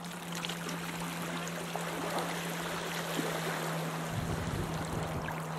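Outboard motor of a small dinghy running at speed offshore, a steady drone, over the wash of water on the rocks. Wind buffets the microphone from about four seconds in.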